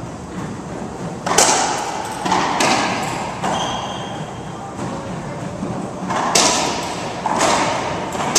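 Racquetball rally: sharp smacks of the racquet striking the ball and the ball hitting the court walls, echoing in the enclosed court. The hits come in two quick runs, about a second in and again about six seconds in, with a short shoe squeak on the hardwood floor in between.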